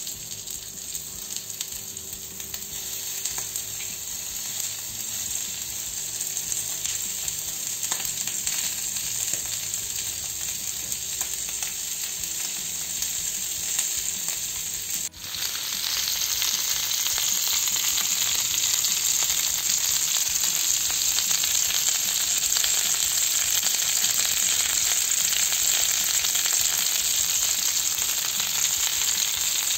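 Beef liver and beef suet skewers sizzling and frying in fat on a hot cast-iron griddle pan. The sizzling gets louder from about halfway through.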